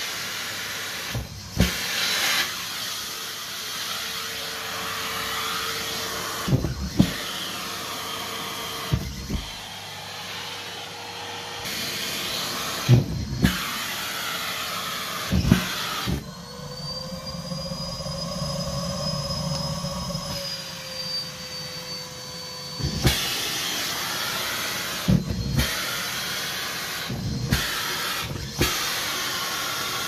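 Henry Xtra vacuum cleaner running with a steady hiss and motor hum, with a thud or knock every few seconds as socks are sucked into the grey hose. About halfway through, a sock plugs the nozzle: the rush of air drops away and the motor note rises to a higher whine for about seven seconds. A knock follows and the normal sound of suction comes back.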